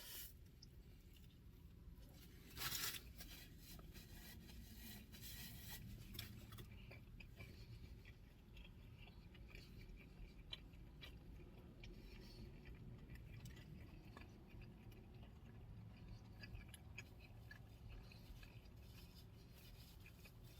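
Faint chewing of a bite of a breakfast flatbread sandwich, with small scattered clicks over a low, steady background rumble; one short louder noise about three seconds in.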